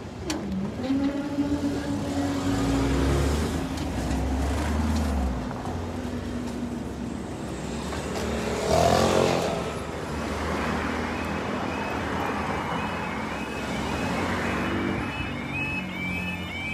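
Road vehicles running over the level crossing, one passing close by about nine seconds in. Near the end a repeating warbling electronic tone starts up.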